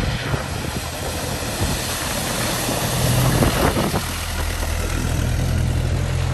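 Land Rover Series engine running steadily as it drives through floodwater, the tyres throwing up splashing water. It grows loudest as it passes close by about three seconds in, then runs on with a steady low hum as it drives away.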